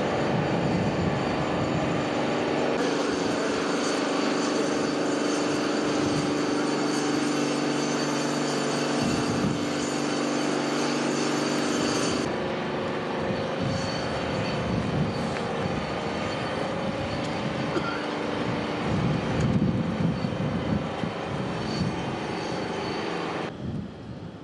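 Launch-pad machinery running with a steady drone and several steady humming tones, as the Soyuz rocket is raised upright on its erector. The drone changes abruptly about 3 and 12 seconds in and drops near the end.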